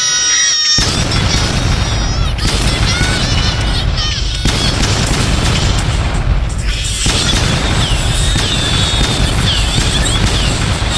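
Added meme sound effects: after a moment of clear tones, a loud, distorted booming wall of sound starts under a second in and keeps going, mixed with music and short squeaky sliding sounds.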